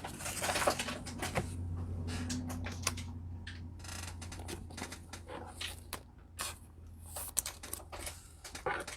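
Light, irregular clicks and taps of trading cards being handled and set down, over a faint steady low hum.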